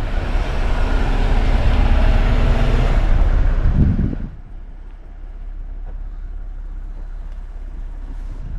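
Jeep running, a steady engine and road rumble with low engine tones, which drops suddenly about four seconds in to a quieter steady low rumble.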